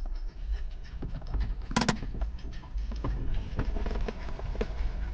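Car cabin noise: a steady low rumble from the engine and tyres while driving slowly in traffic, with a few scattered clicks and one sharper click a little under two seconds in.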